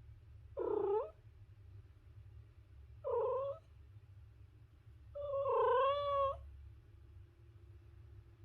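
Domestic cat meowing three times, two short calls followed by a longer one that rises and falls in pitch, over a steady low hum.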